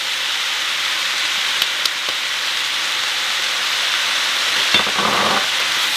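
Onion, green onion and radish sizzling steadily in hot oil in a stir-fry pan, with a couple of light clicks partway through and a short rustle near the end.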